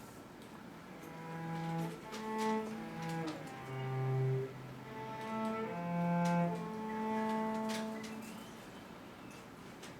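A cello playing a slow phrase of long bowed notes. It starts about a second in and fades out shortly before the end.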